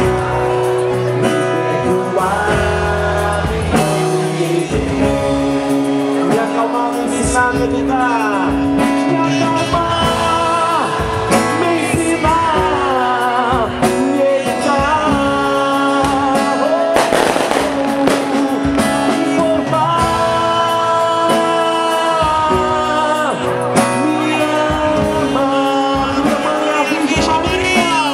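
Music: a song with a sung melody over instrumental accompaniment, playing steadily throughout.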